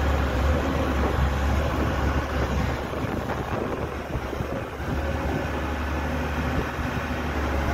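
Diesel engine of a Caterpillar E200B excavator running steadily, a deep even hum, dipping slightly in level around the middle.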